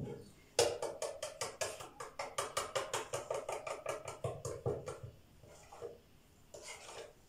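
Egg and milk being beaten with a fork: a quick, even run of short taps, about five strokes a second, lasting about four seconds before stopping.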